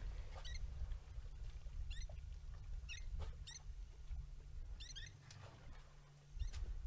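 Blacksmith lapwings calling: short, sharp high notes, repeated every second or so. A steady low rumble runs underneath.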